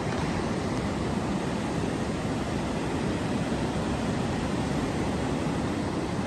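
Ocean surf breaking on a sandy beach: a steady, even rush of waves with no pauses.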